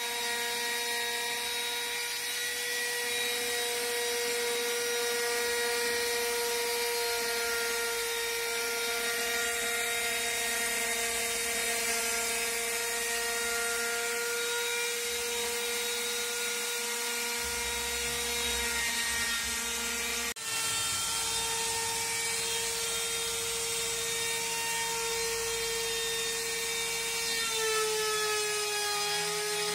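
MPCNC router's spindle motor running at steady speed, a high whine with overtones. It drops out for an instant about two-thirds through, and its pitch sags slightly near the end.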